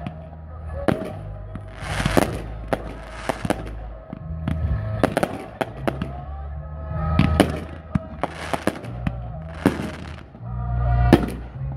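Aerial fireworks bursting: many sharp bangs at irregular intervals, with short stretches of crackling between them. The loudest bang comes about a second before the end.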